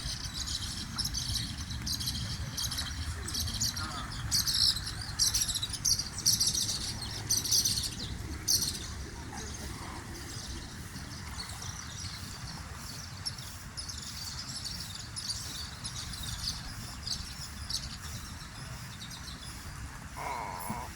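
Small birds chirping rapidly and continuously, busiest in the first nine seconds and sparser after, over a steady low rumble.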